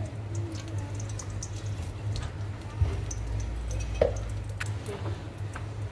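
Cooking oil heating in a stainless steel pan, giving faint scattered crackles and ticks over a steady low hum, with two sharper ticks about three and four seconds in.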